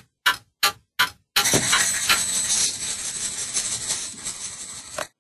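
Clock ticking, about three ticks a second, for the first second or so. Then a loud, dense noise, full of high hiss, lasts almost four seconds and cuts off suddenly.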